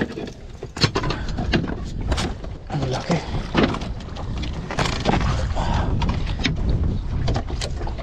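Wind rumbling on the microphone, with irregular knocks and creaks as someone moves about and handles gear in a small outrigger boat.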